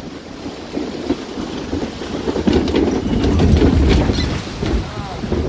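Water rushing and splashing along a log flume trough under a moving ride boat, with wind buffeting the microphone. The rushing grows louder about halfway through as the boat churns through whitewater.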